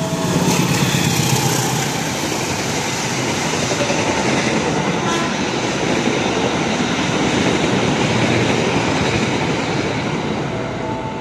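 CC 201 diesel-electric locomotive hauling a long-distance passenger train straight through a station at speed. The locomotive's low engine drone is strongest in the first couple of seconds, then the passenger carriages make a continuous rushing, rattling noise as they go by.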